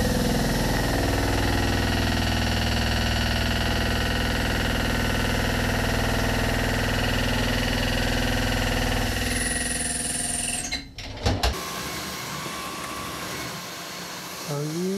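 A CNC mill's large cutter takes a heavy cut into round bar stock, making a loud, steady drone with a deep hum. The chip load per tooth is heavy enough that the spindle might stall. Around ten seconds in the cut sound drops away abruptly, there are a few sharp clicks, and a quieter machine sound follows.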